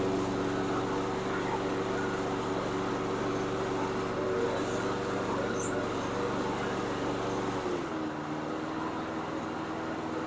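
Briggs & Stratton 8.75 hp Professional Series engine on a Snapper HyVac push mower running steadily at fast idle after an electric start, now that a main jet plugged by a speck of dirt has been cleared. About eight seconds in, its note drops slightly and the deep low part falls away.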